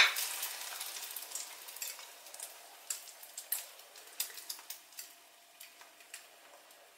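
Egg-and-flour-battered artichoke frying in hot oil in a frying pan: a sharp hiss as it goes in, then a steady sizzle that slowly dies down, with scattered pops and crackles.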